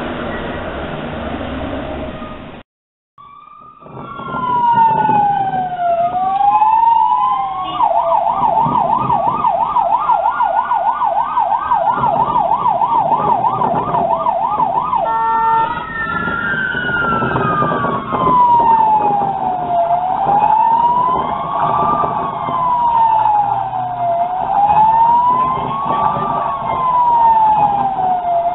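Electronic emergency-vehicle siren. After a brief break in the sound about three seconds in, it runs as a slow rising-and-falling wail, switches to a fast yelp for about seven seconds, then returns to the slow wail, each rise and fall taking about four seconds.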